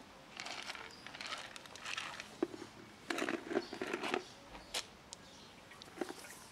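Cats eating from a plastic food container on pavement: irregular soft chewing, scraping and rustling, with a denser patch of noise about three seconds in.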